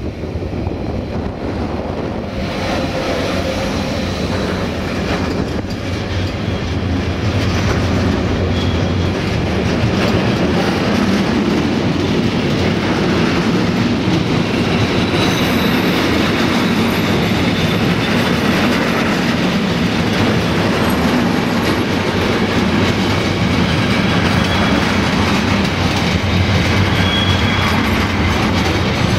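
Container freight train behind a Siemens ES64U2 Taurus electric locomotive rolling past close by. The steady rumble and clatter of wagon wheels on the rails builds over the first few seconds, then holds, with brief faint high wheel squeals now and then.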